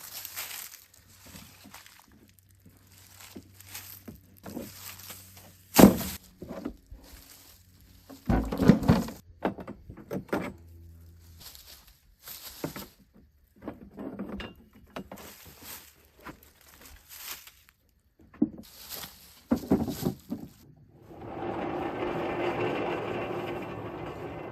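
Scattered clunks, clicks and knocks of a portable sawmill's band blade being changed, with one sharp bang about six seconds in and a heavier thud a few seconds later. An engine comes in running steadily a few seconds before the end.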